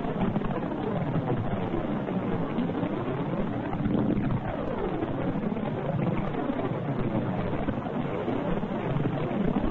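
Space recording converted to sound, presented as the sound of Saturn's rings: a steady, dense drone of many overlapping tones that keep sweeping up and down in pitch.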